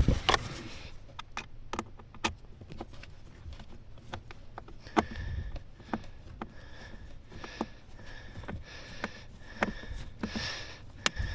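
Scattered small clicks and taps of a screw and a stubby Phillips screwdriver being worked in by hand under a car's dashboard, as a blend-door actuator is fastened back in place. From about five seconds in, a soft hiss comes and goes behind the clicks.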